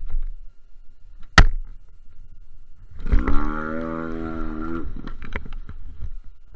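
Racing boat's outboard motor heard from on board: a sharp knock about a second and a half in, then the motor rises in pitch, holds a steady note for about two seconds and cuts off, over a low rumble of wind and water.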